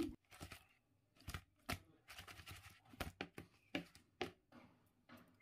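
Raw rohu fish pieces coated in turmeric and salt being tossed in a plastic bowl: faint, irregular wet slaps and taps, about a dozen in a few seconds.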